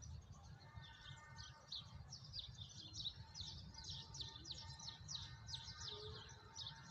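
Small birds chirping continuously: quick, high, falling chirps, about three a second, over a faint low rumble.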